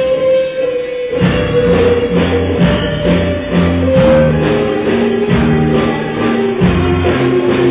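Live band playing reggae-ska: horns, guitars, bass and drums. A single held note rings out while the bass and drums drop out for about a second, then the full groove comes back in with a steady beat.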